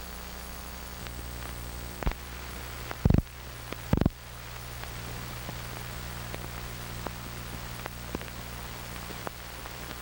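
Hiss and low hum of an old film soundtrack running over blank leader, broken by loud pops and crackles about two, three and four seconds in, with fainter ticks scattered between.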